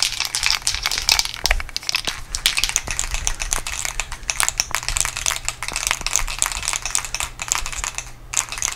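Aerosol can of self-etching primer being shaken hard, its mixing ball rattling rapidly and continuously, with a short pause near the end.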